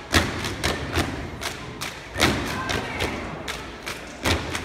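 A step team stepping in unison: sharp rhythmic stomps and claps, about three to four hits a second.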